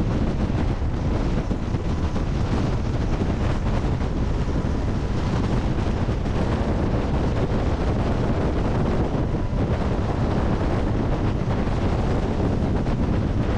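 MH-60 Jayhawk twin-turboshaft helicopter hovering, its rotor downwash buffeting a microphone mounted outside the fuselage as steady, heavy wind noise over the engine and rotor sound.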